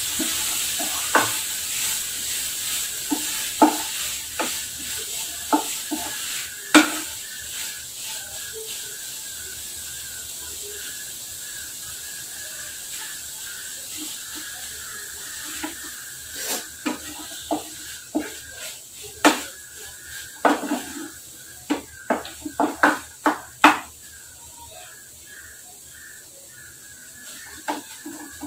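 Crumbled paneer sizzling in oil in a nonstick kadai while a wooden spatula stirs it, knocking and scraping against the pan. The sizzle fades gradually, and the spatula knocks come thick and fast in the second half.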